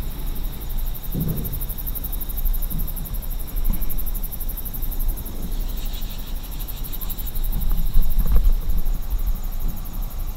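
Low rumble of wind and handling on the microphone, with a few soft footsteps on a dirt floor littered with boards. A steady, high-pitched pulsing hiss runs underneath.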